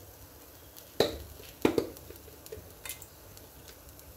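A few sharp clinks and knocks of kitchen utensils against cookware, the loudest about a second in and just under two seconds in, with a lighter one near three seconds.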